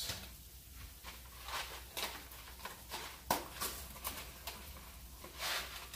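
Powdered cheese being shaken out of torn-open mac and cheese packets: the packets crinkle and the powder patters, with a few light taps.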